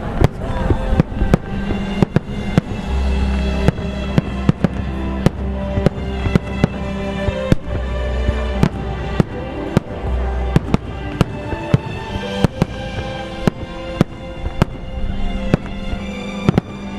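Fireworks shells bursting one after another, sharp bangs at irregular intervals of a second or less, over music playing through loudspeakers.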